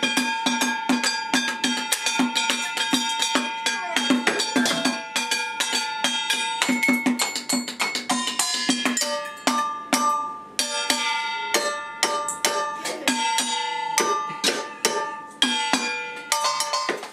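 Stainless steel mixing bowls and tin cans tapped with spoons and sticks: many quick strikes, each bowl ringing at its own pitch, over a steady beat of duller taps at about three to four a second.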